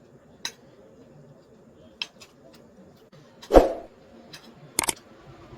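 A few light clicks of tableware while eating, and one louder, sudden hiccup about three and a half seconds in, brought on by eating spicy green chillies.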